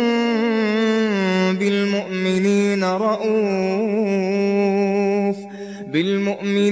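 Quran recited in a melodic chanted style (tajwid) by one voice, drawing words out into long held notes that waver and turn. There is a short break for breath about five and a half seconds in.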